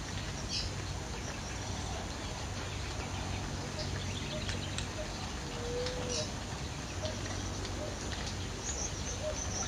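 Birds chirping in short, scattered high notes over a steady background hiss and low rumble, with one brief lower whistled note about halfway through.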